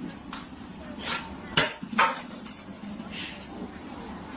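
A few sharp knocks, the loudest two about one and a half and two seconds in.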